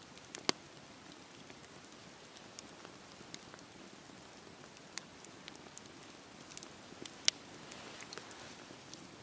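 Campfire crackling: scattered sharp pops and snaps over a soft steady hiss, the loudest pops about half a second in and a little after seven seconds.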